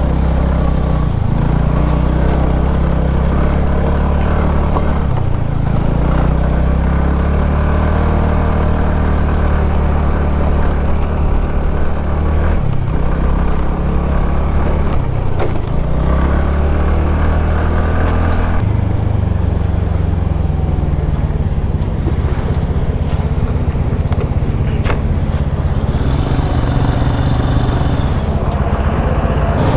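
Small two-wheeler engine running steadily under way, its revs dropping and picking up again several times.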